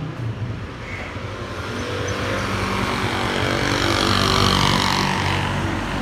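Small pickup truck driving past on the road, its engine and tyre noise growing louder over a few seconds and easing off near the end.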